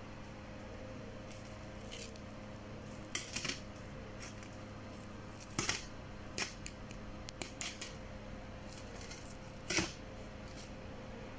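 Scattered light clicks and taps from fingers handling freshly baked bread rolls on a metal baking tray, a few at a time, the loudest near the end, over a steady low hum.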